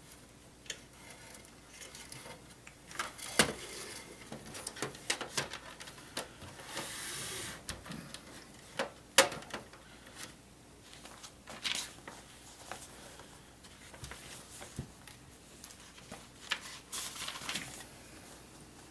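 Scattered small clicks and brief rustles of front-panel connector wires being handled and pushed onto the motherboard's header pins inside a computer case.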